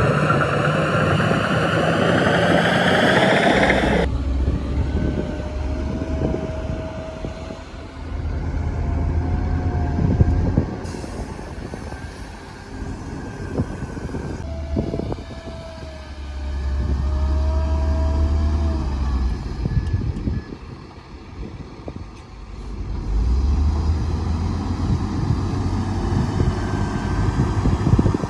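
Heavy diesel earthmoving machinery working: an engine revs up with rising pitch, cuts off abruptly about four seconds in, then engines labour in repeated surges of deep rumble with a faint wavering whine.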